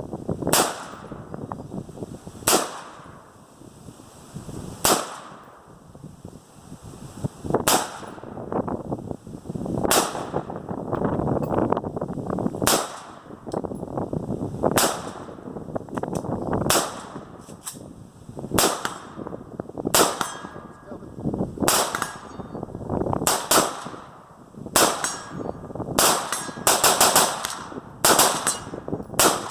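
AR-15 rifle firing shot after shot, one sharp report roughly every two seconds at first, then faster strings of shots near the end.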